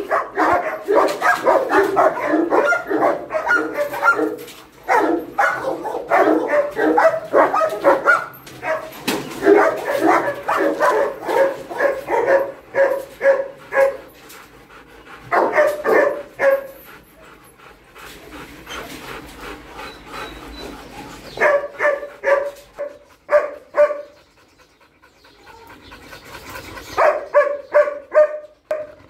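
Several caged dogs barking in fast, overlapping runs, densest in the first half, broken by a couple of short lulls before the barking picks up again near the end.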